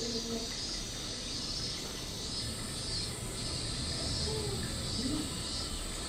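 Cicadas buzzing in a chorus, a steady high-pitched drone that swells and fades in waves.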